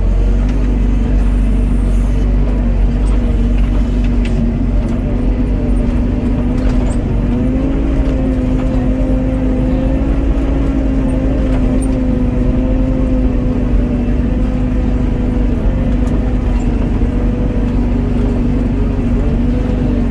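Doosan DX55 mini excavator's diesel engine running steadily at working speed, a continuous pitched hum over low rumble; the pitch rises slightly about seven seconds in and settles back down near sixteen seconds.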